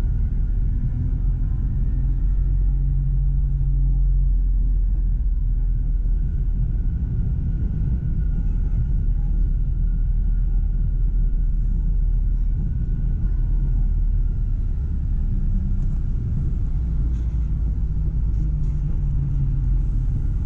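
Tram running along the track, heard from on board: a steady low rumble with a faint electric motor whine that drifts down and back up in pitch.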